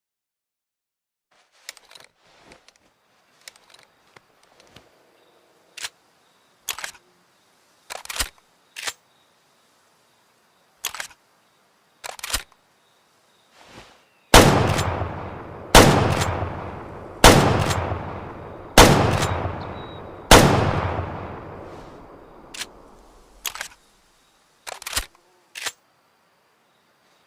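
Remington 7600 pump-action rifle: scattered mechanical clicks and clacks of the action being handled, then five shots about a second and a half apart, each ringing out in a long echoing tail, then a few more clicks of the action.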